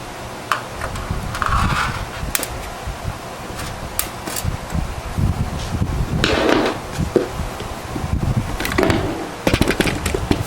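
Clicks, knocks and short scrapes of computer parts being handled and fitted in a desktop PC case, over a continuous low rumble.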